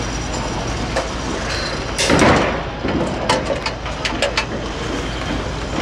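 Building-site noise: a steady low rumble of machinery, a loud rushing burst about two seconds in, then a handful of sharp knocks like hammer blows.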